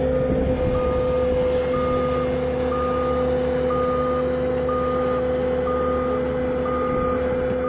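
Reversing alarm on a heavy machine, beeping about once a second, each beep about half a second long. Under it is a steady engine drone.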